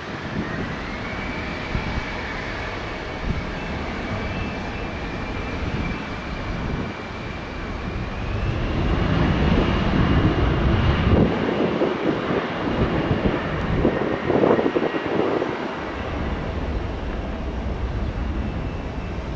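Mitsubishi CRJ-900 regional jet's twin rear-mounted GE CF34 turbofans running up for takeoff: a high whine steps up in pitch near the start and again about eight seconds in, and the jet noise grows louder through the middle.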